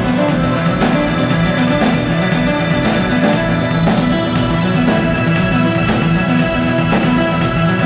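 Live instrumental rock from a drums-and-synthesizer duo: a drum kit keeps a steady pulse of cymbal strokes several times a second over sustained synthesizer chords and a low bass line.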